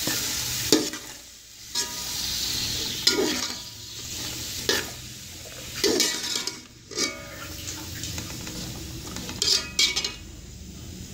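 A metal slotted spoon stirring vegetables in a steel pot, scraping and clinking against the pot at uneven intervals, over a steady sizzle of the vegetables frying in hot oil.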